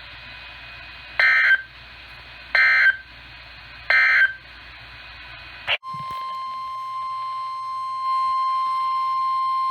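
Emergency Alert System end-of-message data bursts: three short, identical warbling digital chirps about 1.3 seconds apart. After a click, a steady single-pitch 1050 Hz warning alarm tone starts and holds, signalling the next weather warning.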